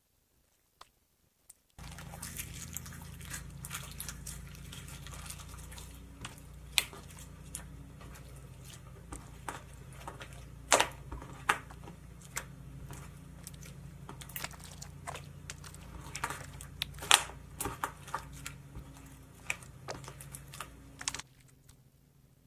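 Homemade borax slime with glitter and confetti mixed in, squeezed and folded by hand: wet, sticky clicks and pops come irregularly, with a few louder pops, over a steady low hum. It starts about two seconds in and stops suddenly about a second before the end.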